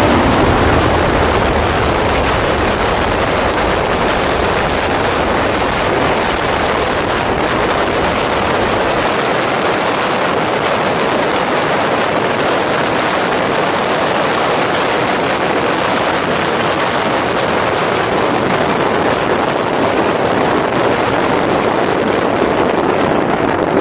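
Steady rush of wind over the microphone, mixed with tyre noise on a gravel road, from an e-bike ridden at speed. The deep rumble drops away about nine seconds in.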